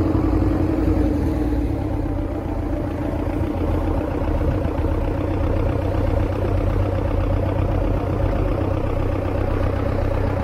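Boat engine running steadily, a low, even drone.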